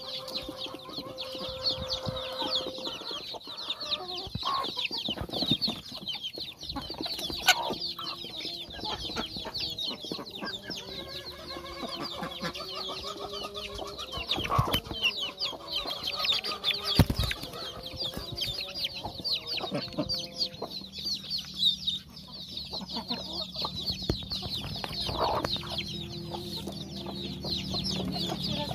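A flock of six-week-old native chicks peeping continuously in many short, high chirps, with a hen's lower, drawn-out clucking underneath and a few sharp knocks.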